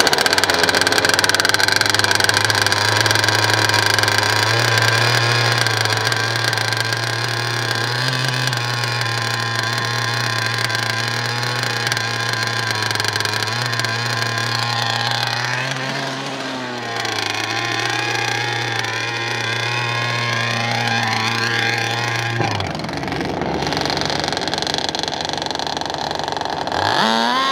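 Two-stroke gas RC boat engine (O'Neill Brothers Racing) pull-started and catching at once, then idling steadily with a brief blip of throttle around a quarter-minute in. Its note changes about 22 seconds in, and near the end it revs up sharply, rising in pitch as the boat takes off across the water.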